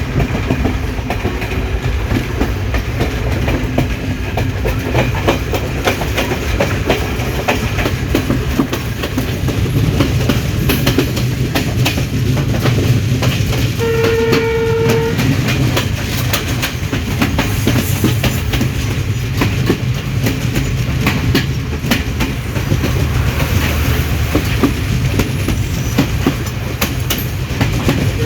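Train running along the track, with a steady rumble and wheels clattering over rail joints. Its horn sounds once, briefly, about halfway through.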